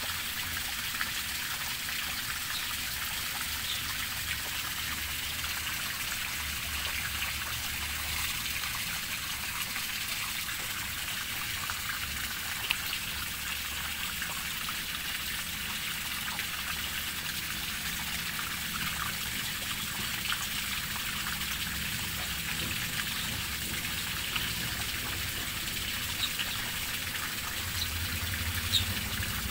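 A crowd of tilapia fingerlings splashing and flapping in a net, a steady watery pattering with a few sharper slaps now and then.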